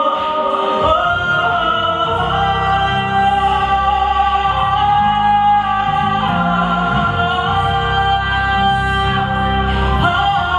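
Live music: singing in long held notes over layered, live-looped parts and a bass guitar line.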